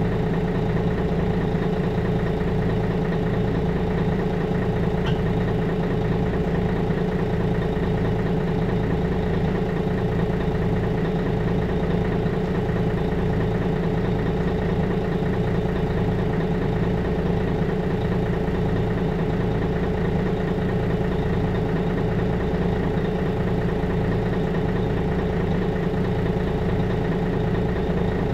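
Mercedes-Benz Citaro O530G articulated bus's diesel engine idling steadily, with a regular low pulse in its hum.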